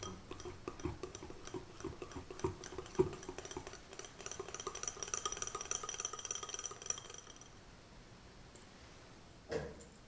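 Small wire whisk beating raspberry purée into a thick creamy mixture in a glass bowl: rapid clinking and ticking of the wires against the glass, stopping after about seven seconds. A single knock comes near the end.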